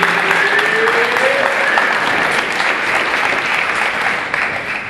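A group of people clapping: steady applause that dies away near the end.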